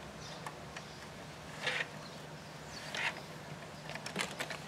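Faint handling noises of a plastic toy cement mixer: two short scraping rustles, then a run of light plastic clicks near the end.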